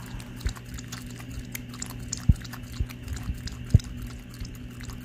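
A dog lapping water from a stainless steel bowl: irregular wet laps and small clicks, with two sharper knocks about a second and a half apart near the middle.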